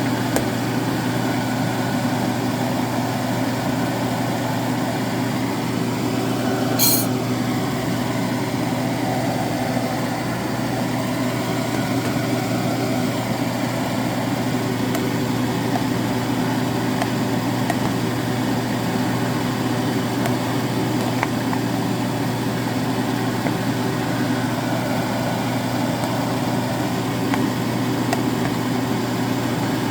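Steady low mechanical hum, with one short sharp click about seven seconds in.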